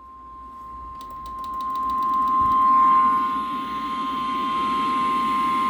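An emergency alert tone: one steady high pitch through a radio's speaker, ahead of a National Weather Service tornado warning. It grows louder over the first few seconds, over a rough radio hum and hiss.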